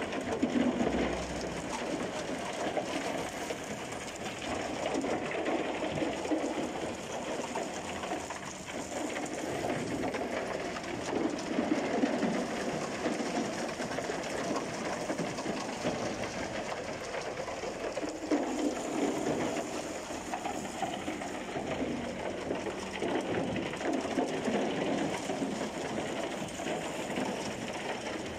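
Broken concrete rubble tumbling out of a rotating transit mixer drum and rattling down its steel chute, a steady grinding clatter that swells and eases every few seconds.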